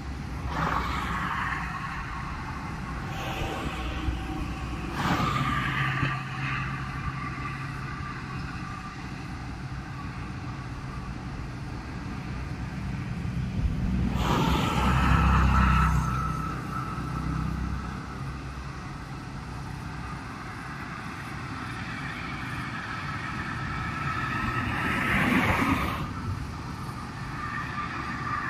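Cars passing on a concrete-surfaced toll road: tyre noise swells and fades with each vehicle, carrying a faint whine. Several pass in the first few seconds. The loudest pass comes about fifteen seconds in, with a deep engine sound, and another comes near the end.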